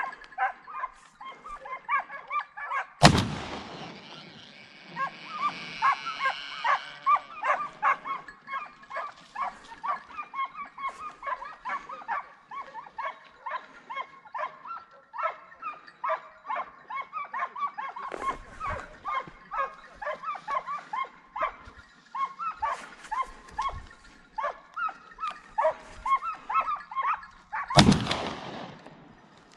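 Hunting hounds baying continuously in rapid repeated calls while chasing wild boar, broken by two loud rifle shots, one about three seconds in and one near the end.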